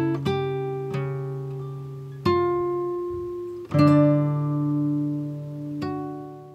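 Background music on a plucked string instrument like an acoustic guitar: slow chords and single notes struck a few seconds apart, each left to ring and fade.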